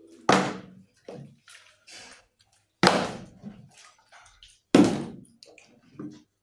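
Small plastic water bottle, partly filled, flipped and landing on a wooden table three times: each landing is a sharp thud with the water sloshing inside.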